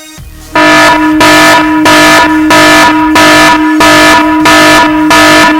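A very loud alarm buzzer blaring in rapid repeated pulses, about one and a half a second. It starts about half a second in and cuts off abruptly. It is a wake-up alarm going off over someone asleep.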